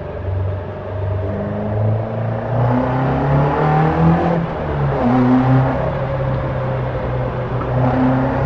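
Caterham Super Seven 1600's four-cylinder engine pulling under acceleration, its revs rising steadily, dropping sharply a little over four seconds in at a gear change, then climbing again.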